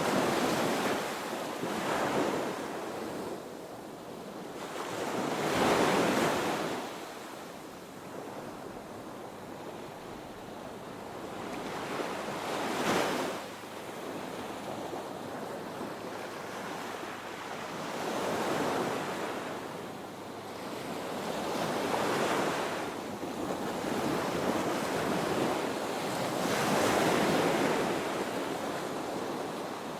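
Ocean surf breaking and washing up a beach, a new surge of rushing water every few seconds, some surges louder than others.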